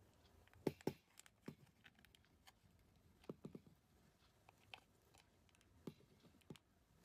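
Near silence with scattered faint clicks and light handling noise as a repaired power cord is looped inside an appliance's housing, about eight small ticks at irregular intervals.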